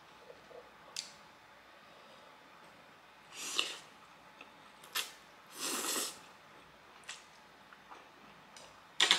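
Close-miked eating of spicy nuclear fire noodles wrapped in lettuce: a few sharp crisp crunches and two short slurps a little past the middle, with the loudest crunch near the end.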